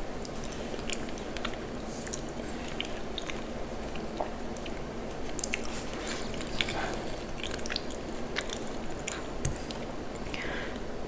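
Close-miked chewing of cheesy macaroni and cheese: soft, wet mouth sounds with many small irregular clicks.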